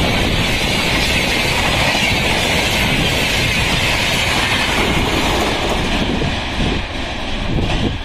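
Duranto Express LHB passenger coaches passing close at high speed: a steady rush of wheel-on-rail noise with clickety-clack. The noise falls off near the end as the rear power car clears and the train passes by.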